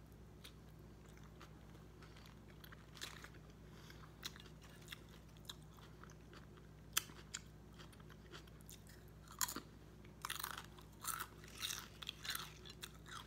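Close-up mouth sounds of eating: chewing a sandwich and crunching potato chips. Scattered single crunches at first, then a denser run of crunching over the last three seconds.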